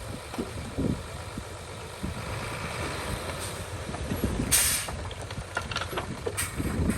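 Heavy work vehicle's engine running with a low rumble and scattered knocks, and a short, sharp hiss about four and a half seconds in.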